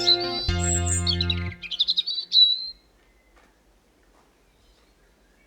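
A songbird singing a few quick chirped and trilled phrases over the last notes of a soft piano-like melody; the music ends about a second and a half in and the birdsong stops soon after, leaving near silence.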